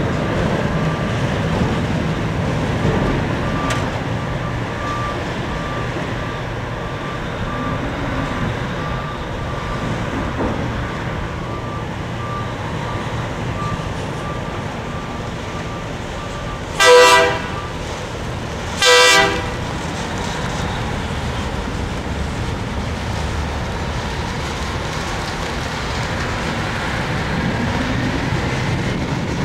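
Steady machinery drone of the Silver Spade, a Bucyrus-Erie 1950-B stripping shovel, with a faint repeating high beep through the first half. Past the middle come two short, loud horn blasts about two seconds apart.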